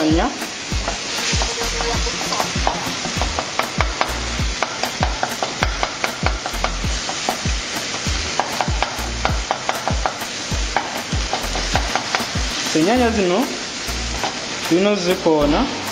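Food frying and sizzling in a pan while it is stirred, with a steady hiss and regular scraping clicks of the spoon against the pan a few times a second. Near the end come two short wavering voice-like sounds.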